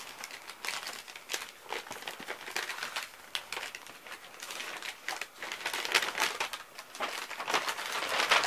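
A sheet of lined notebook paper rustling and crinkling as it is unfolded and handled by hand, the crackling getting louder near the end.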